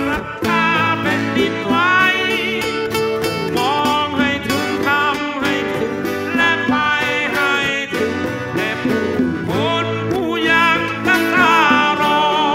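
Live acoustic band music: a male lead vocalist sings a melody over strummed acoustic guitars.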